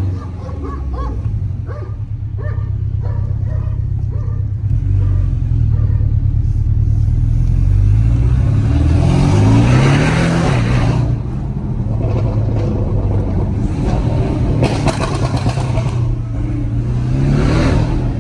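Porsche 718 Cayman with a Stage 2 remap and stainless-steel exhaust, running on the road. Its engine note climbs under acceleration about eight seconds in and drops back, with two brief bursts of noise in the last few seconds.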